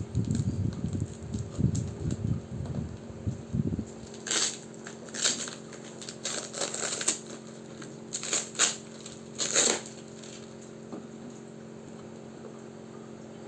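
A heavily taped parcel being handled and torn open. It starts with low rustling and bumping, and from about four seconds in comes a run of sharp ripping and crinkling of packing tape and plastic wrap. Near the end only a steady fan hum is left.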